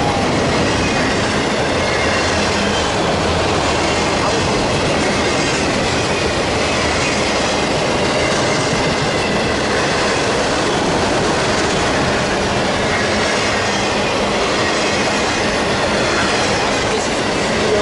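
Autorack freight cars rolling steadily past: the continuous rumble and clatter of steel wheels on the rails, with a faint high wheel squeal at times.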